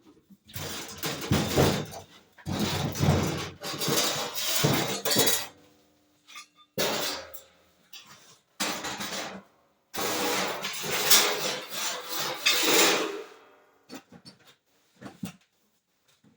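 Welding arc crackling and sizzling as a body panel is tack welded, in four spells of a few seconds each with short pauses between.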